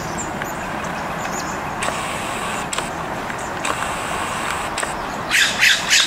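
Steady background hum of road traffic, with a few faint clicks and a brief crackling rustle near the end.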